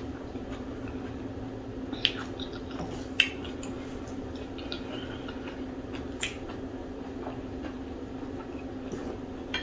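Eating pounded yam with okra soup: a few short, faint wet smacks and clicks of mouth and fingers in the sticky food, spread through with gaps between. A steady low hum runs underneath.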